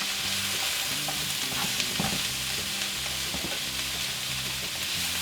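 Onions, broccoli and carrots sizzling in hot oil in a frying pan, with a utensil stirring them and clicking against the pan now and then.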